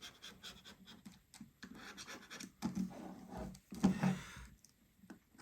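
Flathead screwdriver scraping and tapping around the edge of an opened iPhone's frame, pressing new display adhesive tape down, in a string of short scratches and small ticks.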